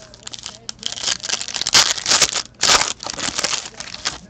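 Foil trading-card pack being torn open, its wrapper crinkling in a run of rustles that starts about a second in and peaks twice near the middle.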